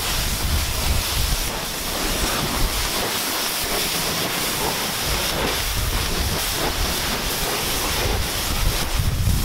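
Water spraying onto a car's bodywork as it is rinsed off after washing: a steady hiss.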